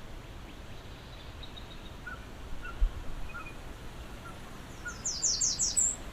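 Wild birds calling outdoors over a low wind rumble: scattered soft short notes, a brief low bump about three seconds in, then near the end a loud run of about five quick, high, downward-sweeping notes.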